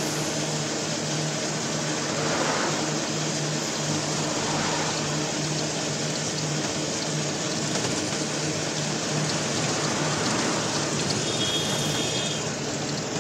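Steady hiss of tyres rolling through wet slush, with a constant low hum from the twin 350 W electric motors of a homemade electric quadricycle, heard from inside its cabin.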